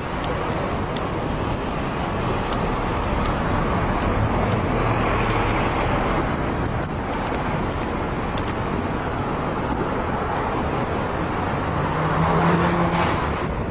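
Wind rushing over the microphone of a camera on a moving bicycle, over the steady noise of city road traffic. Near the end a motor vehicle's sound swells briefly with a steady hum.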